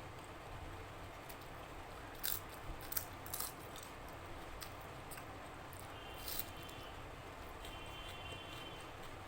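Close-up eating sounds of someone chewing rice and curry: quiet chewing with several sharp wet mouth smacks, a cluster about two to three and a half seconds in and another about six and a half seconds in.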